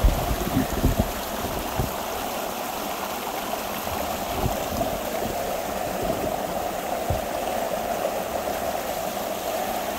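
Water rushing steadily through a breach in a beaver dam and running off below as a fast, foamy stream, with a few dull bumps in the first couple of seconds.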